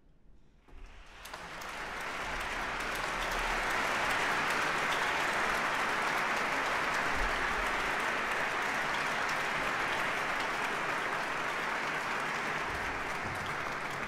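Large audience applauding: the clapping swells in about a second in after a brief hush, then holds dense and steady.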